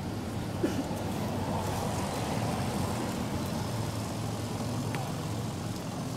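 Steady low background rumble, with one brief high call about half a second in.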